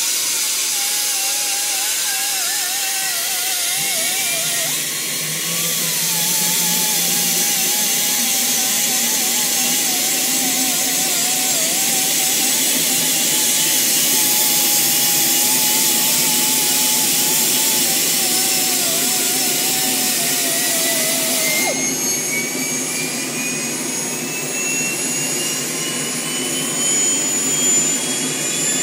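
Bell 206 JetRanger's Allison 250 turboshaft starting up: a loud, steady turbine hiss with whining tones that climb slowly in pitch. A wavering hum cuts off about three-quarters in, after which the whine keeps rising as the engine spools up.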